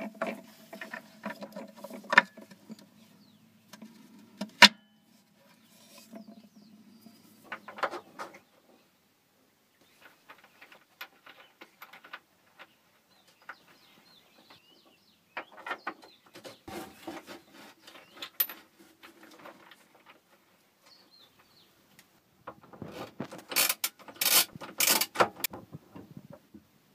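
Scattered clicks, taps and rustles of handling noise as parts of the jet ski are touched and the camera is moved, with a low hum that stops after about eight seconds and a cluster of sharper knocks near the end.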